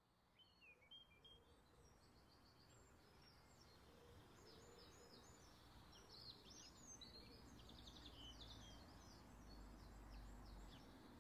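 Faint birdsong: many short, quick chirps and calls from several birds over a quiet outdoor background, fading in from silence at the start.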